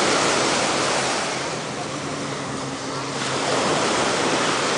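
Small surf washing onto a sandy beach, mixed with wind buffeting the microphone, swelling and easing.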